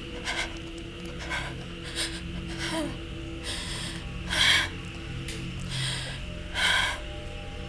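Dramatic background music with a low steady drone and held tones, cut through by a run of short breathy bursts; the two loudest come about four and a half and nearly seven seconds in.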